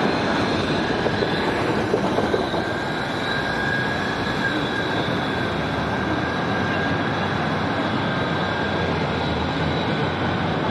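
Low-floor city tram with a steady high whine over street traffic noise. A few knocks come in the first couple of seconds as an articulated bus passes.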